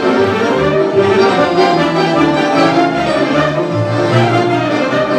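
Romanian folk orchestra of violins and accordions playing an instrumental interlude between sung verses of a lively hora song, over a steady bass beat.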